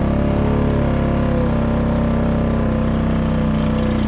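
Quad bike (ATV) engine running steadily at a constant speed, loud and close.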